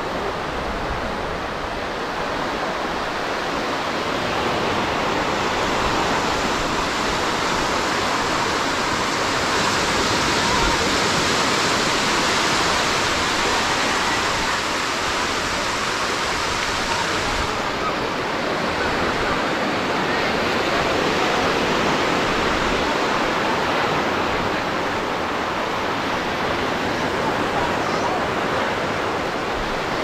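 Ocean surf washing onto the beach: a steady rushing hiss of breaking waves that swells and eases slowly.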